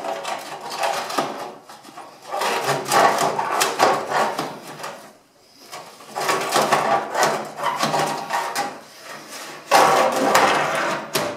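A sheet-metal plate sliding and scraping in its metal slot under a wood-burning stove's oven as it is worked back into place, in about four rattling, scraping spells with short pauses between. The last spell is the loudest.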